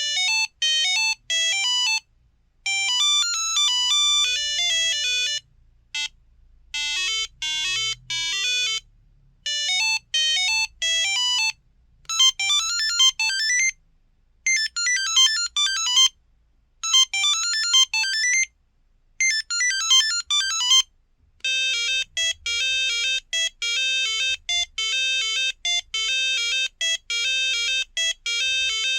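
Monophonic ringtones of a Samsung Anycall SCH-X140 mobile phone: several short beeping melodies played one after another, with brief pauses between them.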